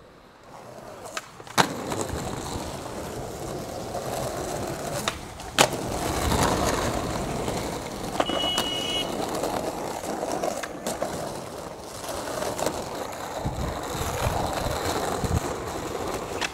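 Skateboard wheels rolling over rough concrete and asphalt, with several sharp clacks of the board hitting the ground; the loudest comes about five and a half seconds in.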